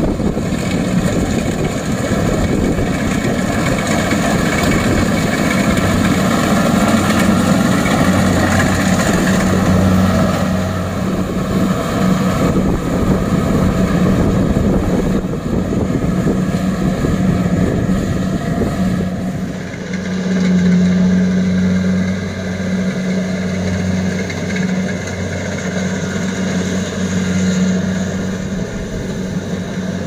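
Kubota DC-70 Plus rice combine harvester running steadily as it cuts and threshes rice: a loud, even diesel engine hum mixed with the noise of the working machinery. The tone changes slightly about two-thirds of the way through.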